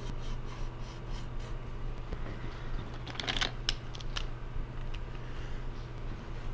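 Pencil sketching lightly on a sheet of drawing paper, then a short burst of paper rustling and handling about three seconds in as the hands and pencil are lifted off the sheet, over a steady low hum.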